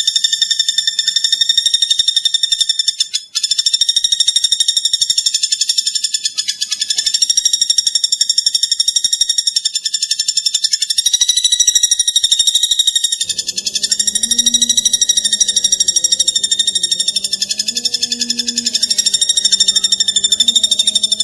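Continuous high-pitched, rapidly pulsing trill of platuk bawang birdsong played as a masteran training recording, with no breaks. About two-thirds of the way in, low background music starts underneath.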